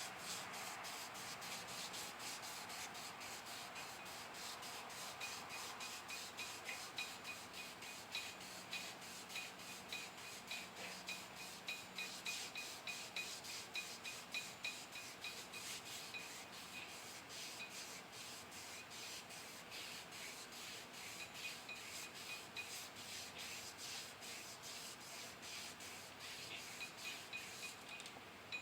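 Crankshaft journal being polished by hand, with a flat shoestring worked back and forth around it: steady rubbing at about two strokes a second, each stroke with a faint squeak.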